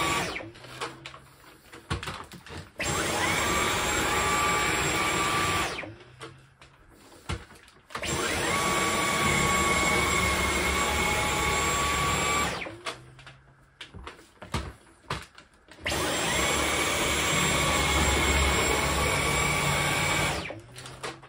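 Dyson V11 Absolute cordless stick vacuum on eco mode with the soft roller head, worked over a rug. It starts and stops four times: each run is a steady high whine that rises as the motor spins up and dies away at the stop. Light knocks fill the gaps between runs.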